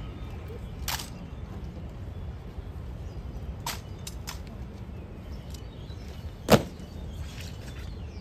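Honor guard rifle drill on stone paving: a few sharp, separate cracks and clacks, including a quick double clack near the middle and a louder, deeper bang about six and a half seconds in, over a steady outdoor background hum.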